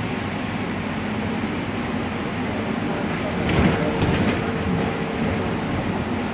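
Bus interior in a heavy rainstorm: a steady engine hum under the rush of rain and wet road noise. About three and a half seconds in, a louder burst of clattering noise lasts about a second.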